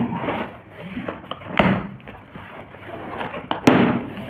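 A cardboard box being opened with a coin: uneven scraping and rustling as the packing tape is slit and the flaps are worked. A sharp knock comes about three and a half seconds in.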